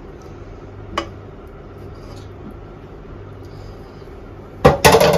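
Serving spoon knocking against a steel cooking pot as curry is dished onto a plate: a light click about a second in, then a loud clatter of metal on metal near the end, over a low steady hum.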